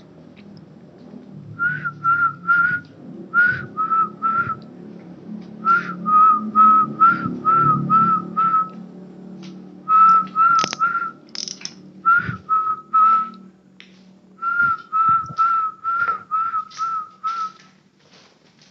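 Short whistled notes, all on one pitch, repeated about three a second in runs of three to eight with pauses between the runs.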